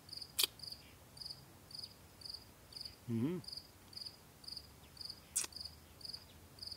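A cricket chirping steadily, about two short high chirps a second. About three seconds in there is a man's brief closed-mouth "mmm", and there are two sharp clicks, one near the start and one about five and a half seconds in.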